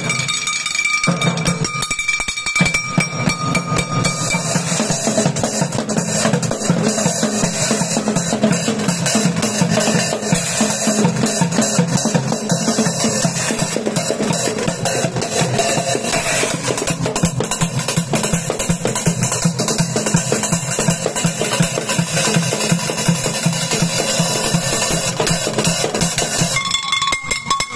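Junk percussion of pots, pans, tubes and cracked cymbals struck with drumsticks, playing a fast, dense, continuous beat.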